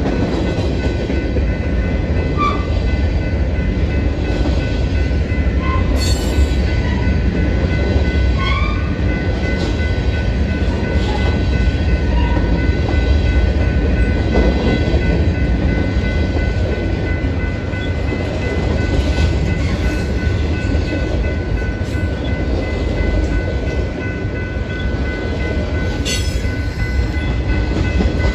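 Freight train cars rolling past close by: a steady rumble of steel wheels on the rails, with a faint, steady, high-pitched ringing above it. Two sharp knocks, about six seconds in and again near the end.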